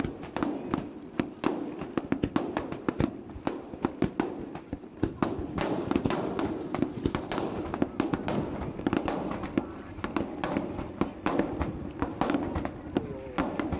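Fireworks display: a dense, irregular run of sharp bangs and crackles from bursting fireworks, several a second, over a steady low rumble.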